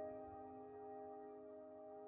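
Quiet background music: a held chord from a note struck just before, slowly fading away.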